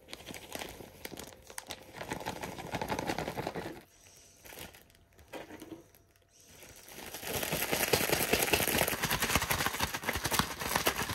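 A plastic zipper bag rustles and crinkles as chunks of fish are loaded into it. After a short pause it is shaken hard for several seconds, with louder, dense crinkling, to coat the walleye pieces.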